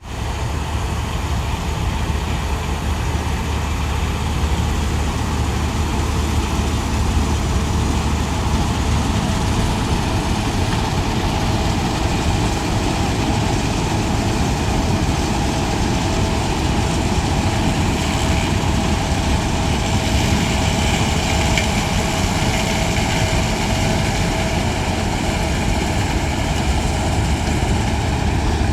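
New Holland TX68 combine harvester running steadily while harvesting corn: a constant low engine drone with a steady higher machinery whine, which grows a little stronger about two-thirds of the way through.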